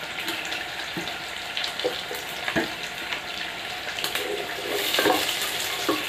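Sliced onions and green chillies sizzling in hot oil and ghee in a pot, a steady frying hiss, with a few knocks of a wooden spatula against the pot as they are stirred.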